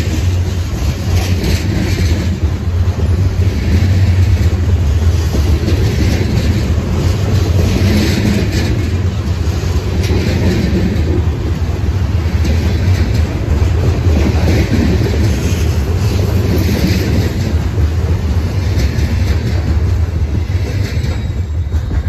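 Covered hopper cars of a freight train rolling past close by: a steady low rumble of steel wheels on the rails, with a brighter clatter every two seconds or so.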